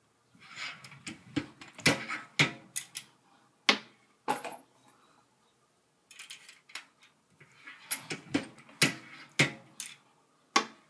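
Small brass 7.62x25mm Tokarev pistol cases clicking and clinking against the steel shell holder and parts of a Lee reloading press as they are set in and pulled out, one after another, during case-mouth flaring. The taps are irregular and sharp, a few ringing briefly.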